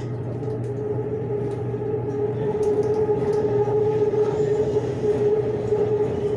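BTS Skytrain electric train running along the elevated track, heard from inside the carriage: a steady rumble with a held motor whine, growing a little louder about halfway through.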